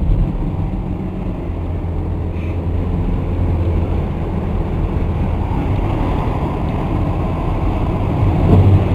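Steady road noise of a car driving at highway speed, heard from inside the cabin: a constant low drone of engine and tyres.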